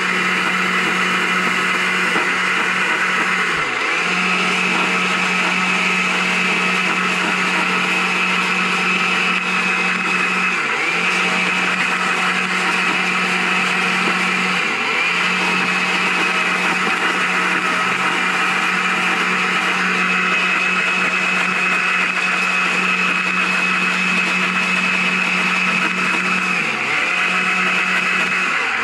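Carving chainsaw running at high revs as its bar cuts into a block of maple, a steady drone whose pitch dips briefly about four times as the cut loads and eases.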